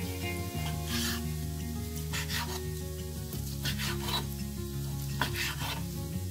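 Kitchen knife slicing through raw chicken breast onto a wooden cutting board: several short rasping cuts, spaced about a second apart, over steady background music.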